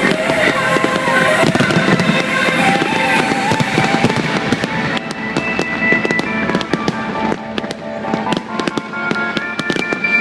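Fireworks bursting and crackling over loud music, with the bangs coming thicker through the second half.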